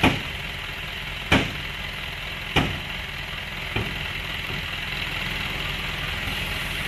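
Isuzu tipper truck's diesel engine idling steadily while the tipper body lowers, with four sharp metallic clanks about a second and a quarter apart, each fainter than the last.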